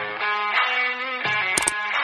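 Background music led by guitar, with held notes changing chord and a couple of sharp percussive hits near the end.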